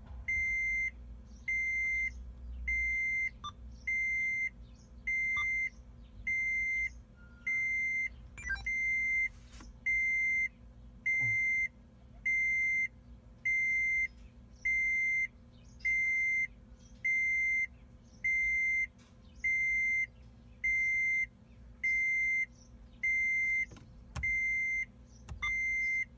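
Electronic warning beeper in a Toyota FJ Cruiser's cabin, sounding a single high beep over and over, a little more than one a second, with a faint low hum underneath.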